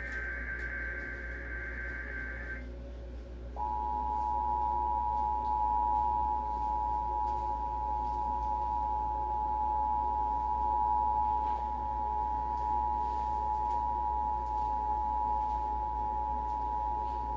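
Emergency Alert System test signal. A final burst of SAME header data, a harsh digital warble, ends about two and a half seconds in. About a second later the EAS attention signal starts, a steady two-tone sound that holds to the end.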